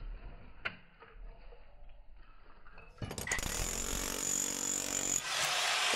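About three seconds in, a Milwaukee cordless demolition hammer starts up and runs steadily, its chisel hammering rapidly into the old concrete porch floor.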